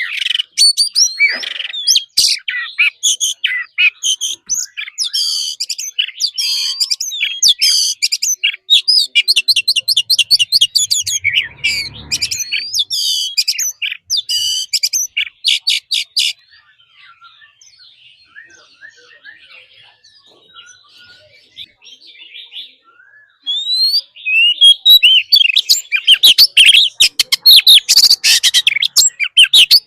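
Oriental magpie-robin singing a loud, varied song of clear whistles and quick chattering phrases. The song drops to faint scattered notes for several seconds past the middle, then comes back at full strength.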